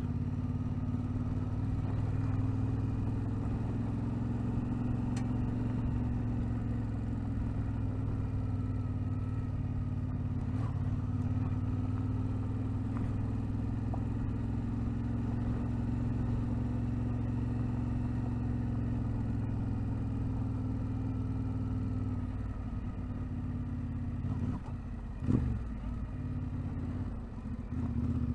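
Vehicle engine running at a steady pace while travelling on a rough dirt track. It eases off near the end, with one sharp knock about three-quarters of the way through, as from a bump.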